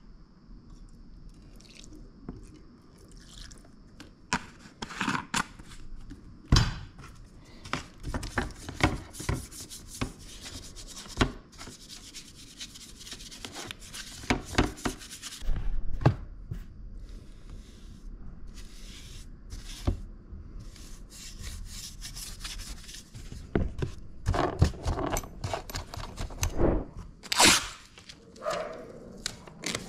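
Workshop handling noise: scattered clicks and knocks with stretches of scraping as a paintbrush scrubs the wet steel machete blade in a plastic tray. Near the end, masking tape is pulled off the roll.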